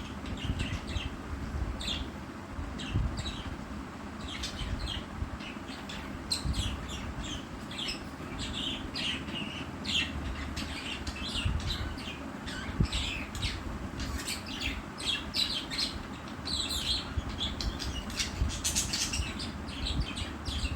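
Budgerigars chirping and chattering in a rapid, continuous stream of short, high chirps.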